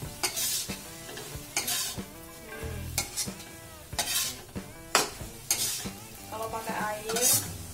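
A metal spatula stirring and tossing tempe and basil leaves in a hot wok: sizzling throughout, with a scrape of the spatula against the pan about once a second.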